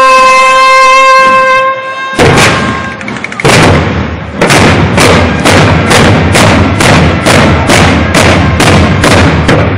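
A clarín (valveless bugle) holds one long note that stops about two seconds in. Then a large procession drum beaten with a padded mallet starts: two slow strokes, then a steady beat of about two strokes a second.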